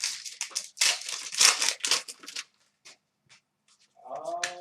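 Plastic trading-card pack wrapper crinkling and tearing for about two and a half seconds, followed by a few light ticks. A man's voice starts near the end.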